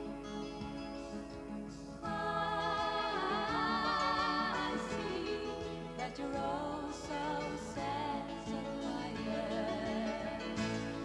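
Pop music with sung vocals, played from a vinyl record through hifi speakers and picked up by a camera microphone in the room.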